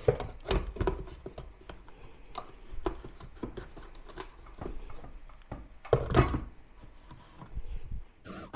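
Plastic clicks and knocks as a hand blender's motor unit is fitted and pressed onto its chopper bowl. There is a louder knock about six seconds in. The motor is not running.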